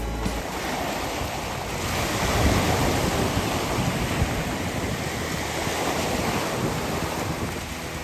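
Small sea waves washing over a pebbly shore and around rocks, with wind on the microphone; the surf swells louder about two seconds in.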